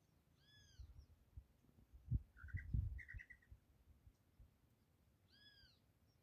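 Two short, arching whistled bird-like calls about five seconds apart, with a quick run of chirping notes between them. Low thumps close to the microphone around two to three seconds in are the loudest sounds.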